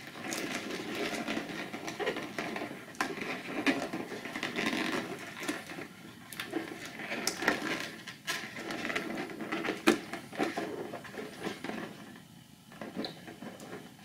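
Fingers handling inflated latex balloons while tying a twisting balloon in place: irregular rubbing of rubber with scattered small taps and clicks, dying down near the end.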